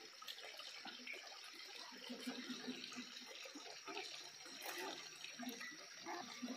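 Muscovy ducks feeding at a trough, their bills dabbling with a faint, wet, irregular splashing and slurping.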